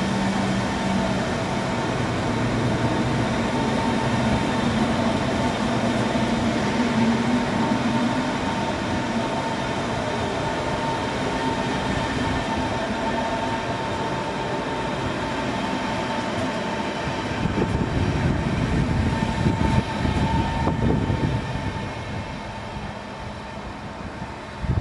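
Tram running on its rails, a steady running noise with a constant whine and a brief rising whine a few seconds in. There is heavier rumbling about eighteen seconds in, then the sound fades away near the end.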